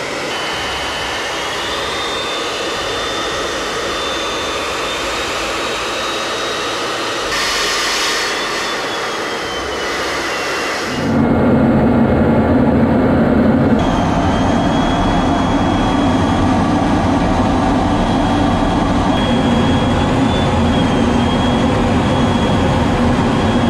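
F-16 fighter jet engine heard from the cockpit: a steady rushing noise with a thin high whine. About eleven seconds in it cuts to a louder, deeper engine sound, with the whine back over it a few seconds later.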